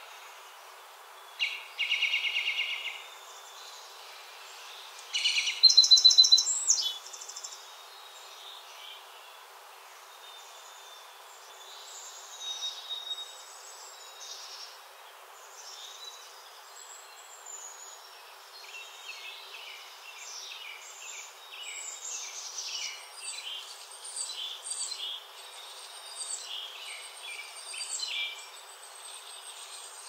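Songbirds singing: two loud buzzy trills near the start, the second louder, then a long run of quick chirped song notes later on, over a steady background hiss.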